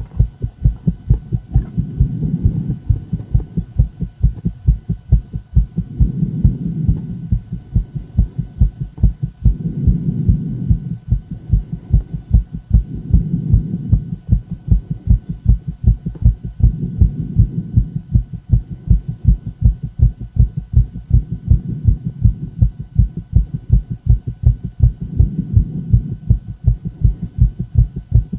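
A woman's heart beating fast: a steady, rapid train of low thumps, with a low whoosh that swells and fades about every four seconds.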